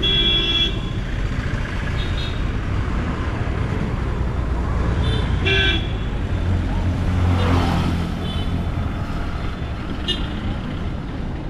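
Road traffic with vehicle horns honking over a steady rumble of engines. There is a loud horn blast right at the start and another about five and a half seconds in, with several shorter beeps between, and a vehicle passes close around seven to eight seconds in.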